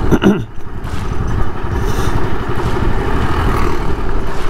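Motorcycle engine running steadily under way, heard from the rider's own bike, with a short downward sweep in pitch right at the start.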